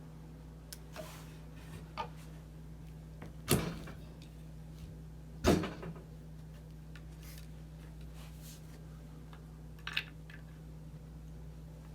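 Parts of a Taylor 342D frozen drink machine being handled and fitted together: two loud knocks with a short scrape, about two seconds apart, a few lighter clicks, and a sharp click near the end, over a steady low hum.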